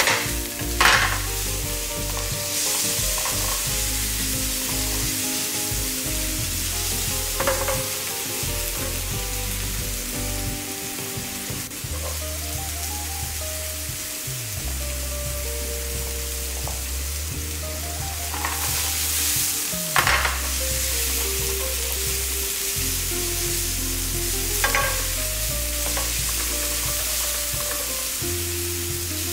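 Ground pork, garlic and chopped peppers sizzling steadily in a hot frying pan as they are stir-fried with a wooden spatula, with a few louder knocks along the way.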